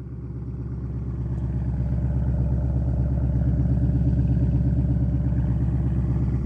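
2020 Ford Mustang's exhaust, with a custom H-pipe and a ghost-cam tune, running at a steady idle with a choppy, pulsing lope. It grows louder over the first couple of seconds, then holds steady.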